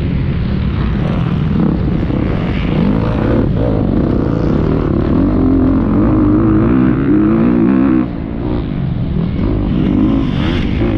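Motocross bike engine heard from on board, revving up and down as the rider works the throttle along the dirt track, with wind rushing over the microphone. The engine note eases off briefly about eight seconds in, then picks up again.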